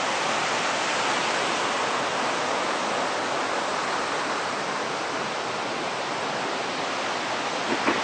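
River water rushing over a rocky waterfall and rapids, a steady, even rush of white water.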